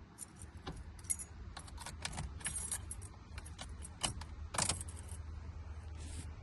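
A set of keys jingling, a run of quick metallic clinks for about five seconds, loudest a little before the five-second mark.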